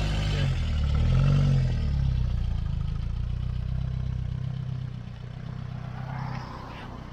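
A Reliant Rialto three-wheeler's small four-cylinder engine revs up as the car pulls away, then its note fades steadily as it drives off.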